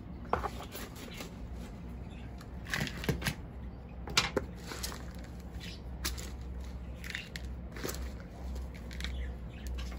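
Potting mix being handled with a plastic scoop and plastic bowls: scattered rustles, short scrapes and light knocks, over a low steady hum.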